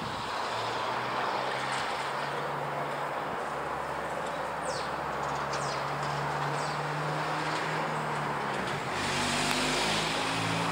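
De Havilland Canada Dash 8-300 turboprop airliner climbing overhead. Its twin propellers and engines make a steady drone: a low hum under a broad rushing noise, growing a little louder about nine seconds in.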